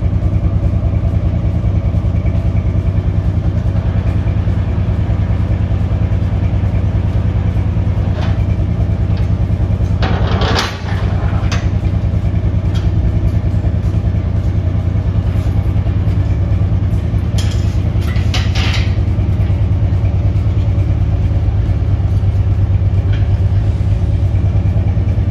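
Tow truck's engine idling steadily while its wrecker boom lifts an engine on a chain, with short metallic rattles about ten seconds in and again a few seconds later.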